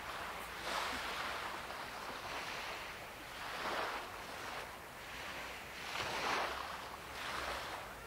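Ocean waves washing in: a steady rush of surf that swells and fades about four times.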